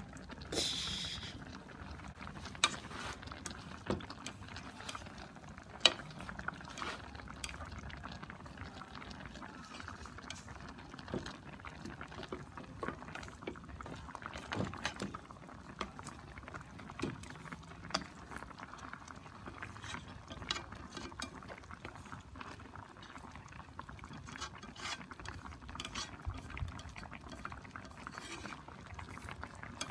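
Chicken drumsticks bubbling in their cooking liquid in an electric skillet, with wooden chopsticks clicking and scraping against the pan as the pieces are stirred and turned. A few louder knocks come in the first six seconds.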